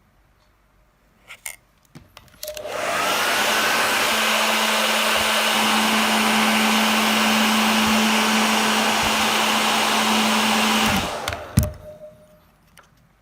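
A hot-air blower runs. A few clicks come first, then it spins up with a briefly rising whine and blows with a steady rushing hum for about eight seconds before cutting off, followed by a couple more clicks. It is heating the adhesive of a phone's info sticker so the sticker can be lifted without tearing.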